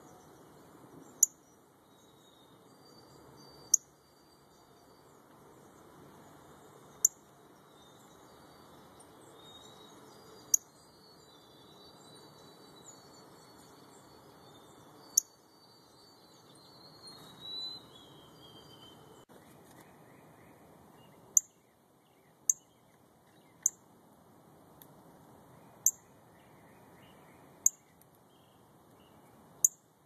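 Northern cardinals giving sharp, high chip notes, one every two to four seconds, with faint songs of other birds and a steady hiss behind.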